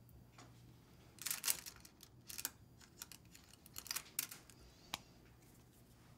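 Pearl necklaces and metal chain jewellery clinking and rattling as hands sort through them, in a few short bursts of small clicks.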